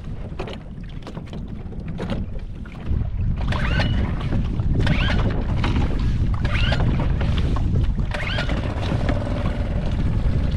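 Small Suzuki outboard motor on a fishing kayak running, getting suddenly louder about three seconds in as it picks up speed and then holding steady. Wind buffets the microphone throughout.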